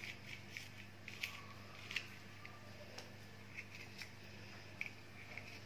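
Kitchen knife cutting into and scraping the seeds out of spiny gourds (kantola): a series of faint short crisp cuts and scrapes, irregularly spaced, over a low steady hum.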